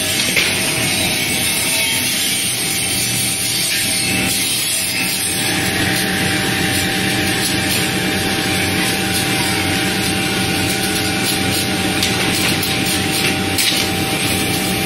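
Plywood veneer-paving line running, its electric motor and chain-driven conveyor giving a steady mechanical drone. A steady whine joins about five seconds in.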